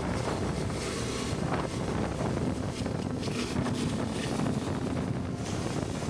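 Steady wind rushing over the microphone of a moving motorcycle, with road and riding noise underneath.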